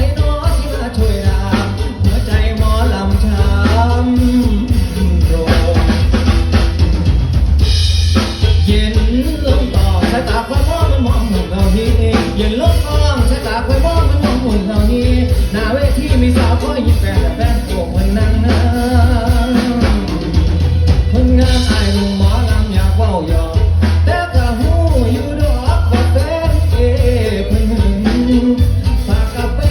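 Live band playing a Thai Isan-style pop song, with a steady drum kit and bass under a wavering melodic lead line; cymbal crashes ring out about 8 seconds in and again about 21 seconds in.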